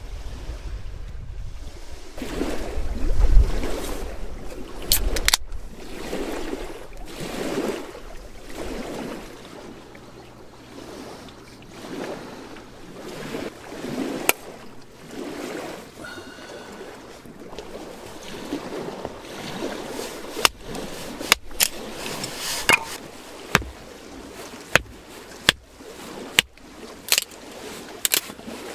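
Small lake waves washing against the shore about every two seconds, with a gust of wind rumbling on the microphone about three seconds in. In the second half, a run of sharp clicks and knocks.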